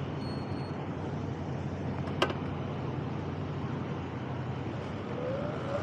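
Steady city traffic noise at an intersection, with a single sharp click about two seconds in. Near the end, a rising whine as the Sur-Ron electric dirt bike's motor pulls away.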